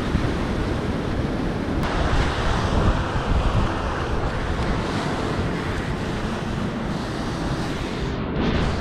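Steady rush of a mountain beck's water pouring through a rock pool, with wind buffeting the microphone.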